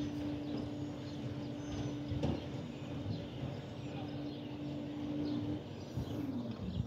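A steady machine hum holding one pitch over a low rumble; the hum stops about five and a half seconds in and slides down in pitch.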